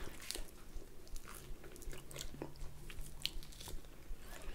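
A person biting into and chewing a piece of pizza dipped in cheese sauce, close to the microphone: irregular small clicks and wet mouth sounds.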